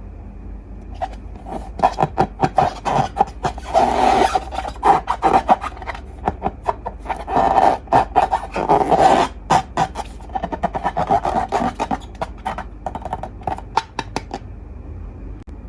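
Slime being squeezed and worked by hand: a fast run of sticky clicks and pops, thickening into two longer squelching stretches about four and eight seconds in, and stopping shortly before the end.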